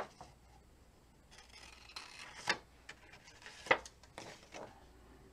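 Scissors snipping cardstock, trimming small slivers off the cut edges: several short, sharp snips, the loudest about two and a half and three and a half seconds in, with faint paper rustling between.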